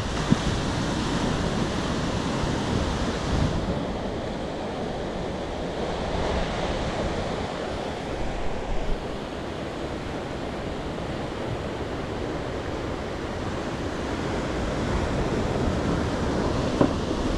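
Ocean surf washing steadily, with wind buffeting the microphone. A short sharp knock comes just after the start and another near the end.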